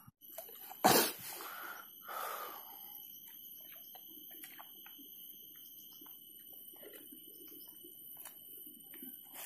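Quiet ambience with one sharp knock about a second in, a brief soft rustle a second later, and a faint steady high-pitched tone with scattered small ticks.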